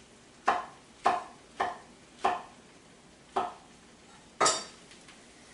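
Six sharp metal clanks of kitchen utensils against cookware, each with a short ring, spaced unevenly; the last, near the end, is the loudest and brightest.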